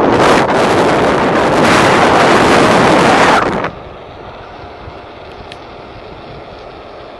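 Wind buffeting a camera's built-in microphone on a moving bicycle, loud and gusty, then dropping sharply about three and a half seconds in to a much quieter steady rush of air, with one faint click a little after the middle.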